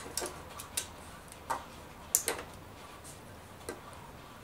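Irregular sharp clicks and taps of a hand screwdriver working at the small plugs in a Ubiquiti AirFiber 24 radio's housing, about seven in four seconds.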